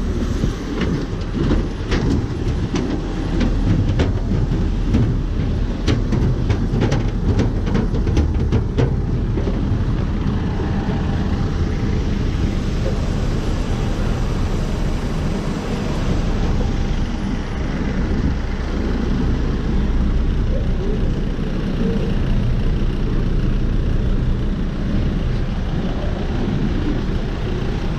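Loud, steady rumble of airport apron noise from jet aircraft and ground vehicles. In the first nine seconds, a run of clicks and knocks comes from footsteps on the aircraft's metal boarding stairs.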